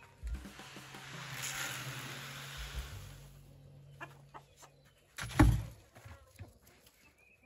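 Chicken feed pouring out of a plastic bin into a plastic bucket, a hissing rush lasting about three seconds, with chickens clucking. A single loud thump comes about five seconds in.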